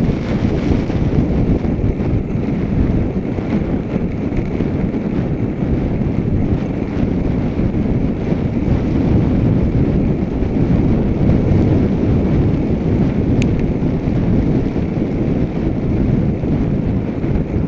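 Wind rushing over the microphone of a camera on a moving bicycle, with tyre and road noise: a loud, steady low rumble. A single faint tick comes about thirteen seconds in.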